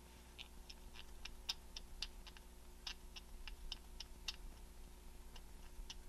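Faint, irregular small dry clicks, a few a second, from a hand pin vise turned in the fingers as its fine drill bit bores out the holes of a tiny resin distributor cap. The clicks thin out about four seconds in, then pick up again near the end.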